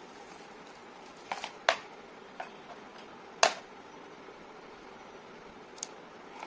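Small, sharp clicks and knocks from handling the plastic connectors and anchor cords of a Peak Design Slide Lite camera strap. There are about six, spread irregularly, with the loudest about one and a half and three and a half seconds in, over a steady low hiss.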